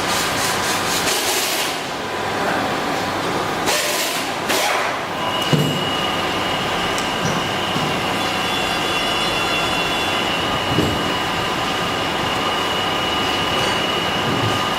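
Water-cooled spindle motor running, with a steady mechanical noise and two short bursts of hiss in the first five seconds, then a steady high whine from about five seconds in.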